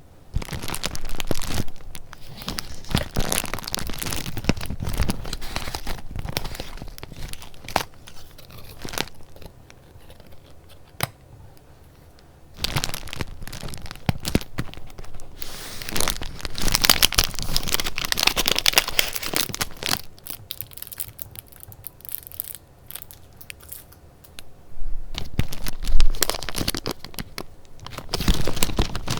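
Paper being handled close to the microphone: crinkling and rustling in three long spells with quieter pauses between them, with sharper crackles near the end.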